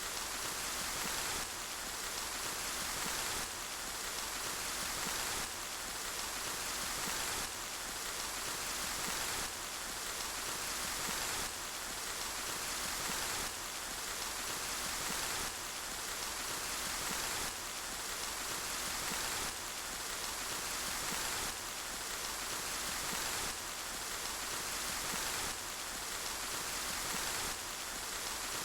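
Steady rain falling as an even hiss, with a small step in level about every two seconds.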